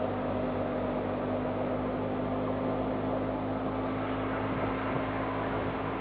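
Tractor-driven wheat thresher running at a steady speed, its drum, belts and pulleys turned by a Fiat 480 tractor, making a continuous even mechanical drone with a steady hum in it.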